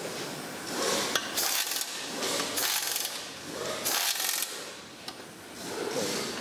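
Hand screwdriver turning screws into a plastic motorcycle rear fender and tail-light bracket. It gives three short rasping scrapes about a second apart, and parts rub and knock in between.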